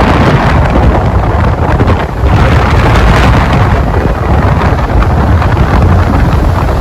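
The Rhine Falls' water rushing, a loud steady dense noise, with wind buffeting the microphone.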